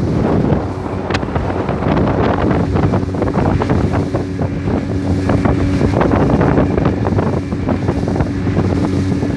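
Motorboat under way: heavy wind buffeting the microphone over the steady drone of the boat's engine.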